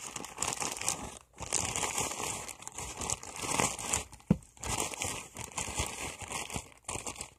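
Plastic Ziploc bag crinkling and rustling in irregular bursts as cotton is stuffed into it by hand.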